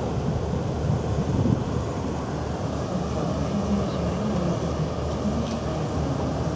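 Steady low rumble of the Michigan stern-wheel cruise boat running under way, heard from its open deck.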